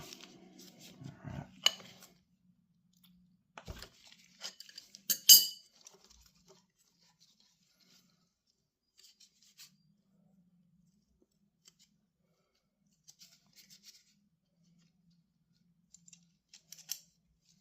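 Scattered metallic clicks and clinks of a chain riveting tool and its small steel parts being handled, with one sharp clack about five seconds in, then only a few faint ticks.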